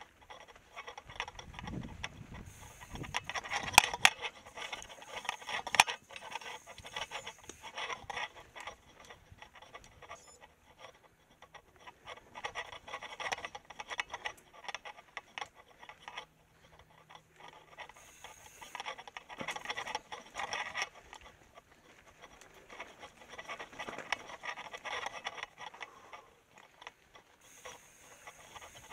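Mountain bike riding over a rocky trail: tyres crunching and scraping on rock and grit, with irregular clicks and rattles from the bike.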